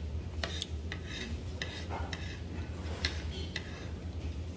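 Spoon and chopsticks clicking and scraping against a ceramic plate while eating, in scattered light clinks.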